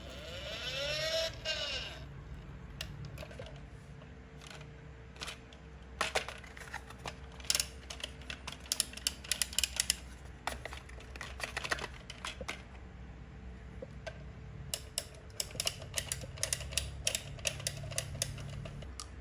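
Marbles clicking and rattling along a toy marble run, in two long stretches of quick, irregular clicks. About half a second in, a brief whirring ring rises and falls in pitch, like a marble spinning round.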